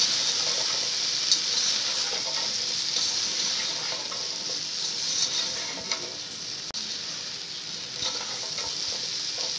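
Cut okra sizzling as it fries in hot oil with a pounded garlic-and-spice masala, stirred with a spatula that taps and scrapes the pan now and then. The masala is roasting in with the half-fried okra.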